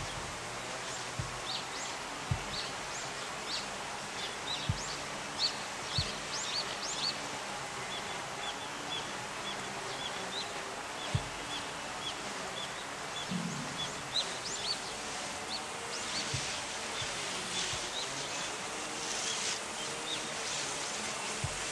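Eastern spot-billed duck chicks peeping: many short, high chirps, in a quick run of repeated peeps in the middle. Steady outdoor background noise and a few soft knocks run underneath.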